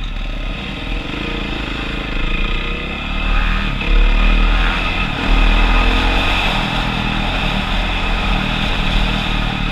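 450 dirt bike engine running under way on a gravel track, its pitch rising and falling with the throttle, with wind and tyre noise. It gets louder about four seconds in and again just after five seconds as the throttle opens.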